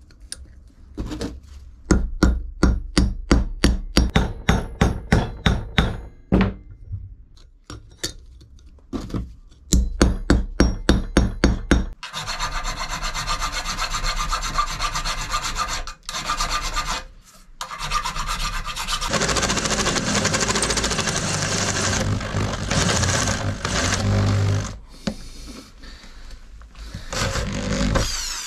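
Rhythmic back-and-forth strokes of a hand tool, about three a second, in two runs, followed by a long steady abrasive rubbing.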